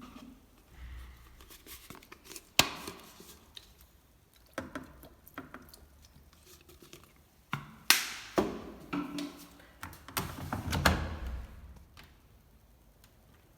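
Beko washing machine washing towels: irregular thuds and rustling as the wet load tumbles in the drum, with several sharp knocks.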